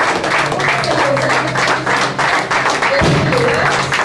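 A crowd applauding steadily, many hands clapping, with a few short voice-like calls over it.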